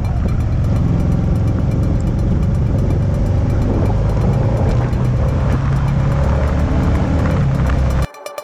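On-board riding noise from a motorcycle at a steady cruise: a low engine hum under wind and road rush. It cuts off suddenly near the end and gives way to electronic music.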